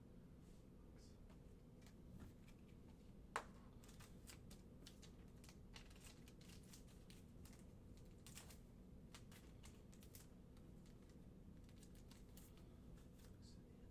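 Faint, irregular light clicks and taps over a low steady hum, with one sharper click about three and a half seconds in.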